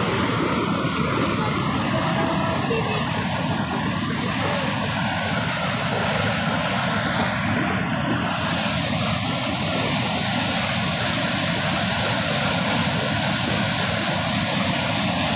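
Rising floodwater surging over a concrete dam weir: a steady, unbroken rush of turbulent muddy water.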